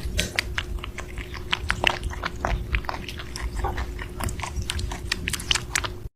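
A pet chewing and biting, with many quick, irregular crunches and clicks over a steady hum.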